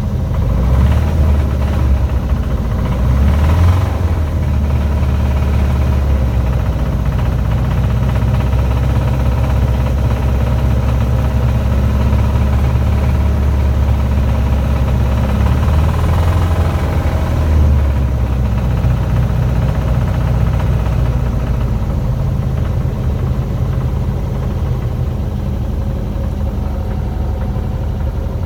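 Vehicle engine running at a steady idle, swelling briefly about three seconds in and again about seventeen seconds in; the engine makes a noise its owner calls weird.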